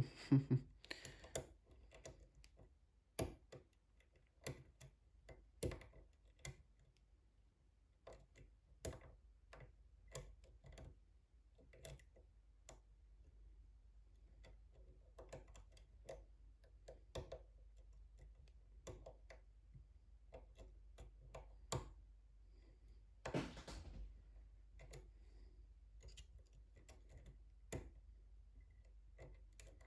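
Faint, irregular clicks and ticks of a thin lock pick and tension wrench working the pins of a brass pin-tumbler challenge lock, with one brief, louder rustle a little past two-thirds through.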